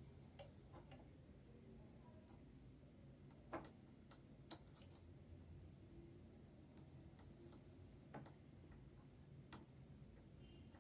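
Near silence with faint, irregular clicks and taps from small parts of a sewing machine being handled during servicing.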